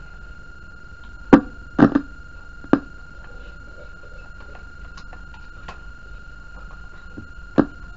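Sharp knocks and clicks from hands handling a computer speaker box and its cables: three in the first three seconds and one near the end, with a few faint ticks between. A steady high-pitched tone runs under them.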